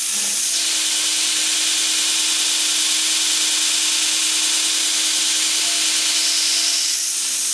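Northridge 2x60 belt grinder running steadily while a steel bar's edges are chamfered against its belt in a chamfer fixture: a constant grinding hiss over a steady motor hum.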